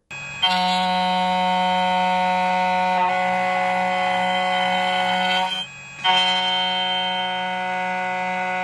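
2M2 Tank CNC key cutting machine's cutter spindle running with a steady whine as it mills a flat key blank. It stops for about half a second a little past halfway, then starts again.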